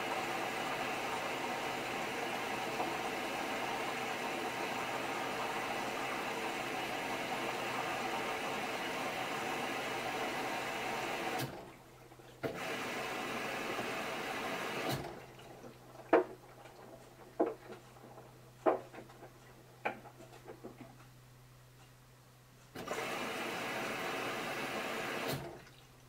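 Samsung front-loading washing machine taking in water at the start of a wash cycle: a steady rush of water through the inlet in spells that cut off and restart three times, over a low motor hum. In the gap between spells the drum turns the wet clothes with a few soft knocks and clicks.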